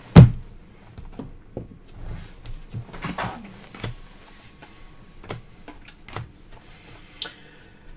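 A sharp thump on the table about a quarter second in, then soft clicks and short slides of trading cards being handled and sorted into piles.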